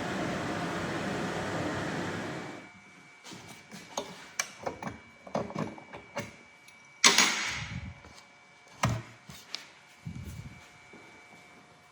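A workshop power tool runs with a steady whirring noise and cuts off about two and a half seconds in. Scattered knocks and clicks of parts and tools being handled follow, the loudest a sharp knock about seven seconds in.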